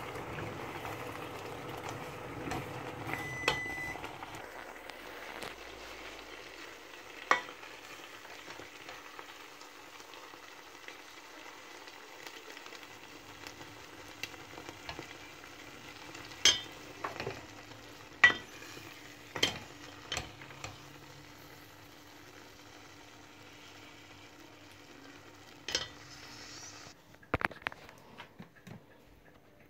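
Pot of beans simmering on a gas stove with a steady hiss, while a serving spoon stirs and scoops the beans, knocking sharply against the stainless steel pot several times. The hiss stops near the end.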